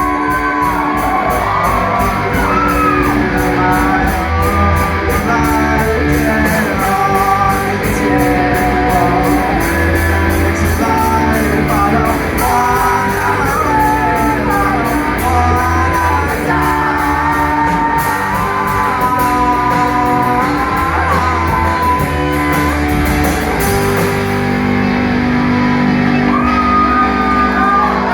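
A rock band playing: guitar and bass over drums with a steady cymbal beat, and a voice singing a bending melody line.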